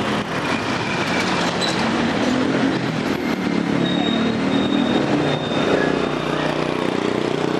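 Motor scooter engine running along a narrow street, its pitch wavering, over steady street noise.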